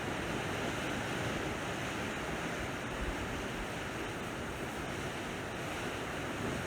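Sea waves washing steadily on a shore: an even, unbroken hiss of surf, with a faint low rumble of wind on the microphone about three seconds in.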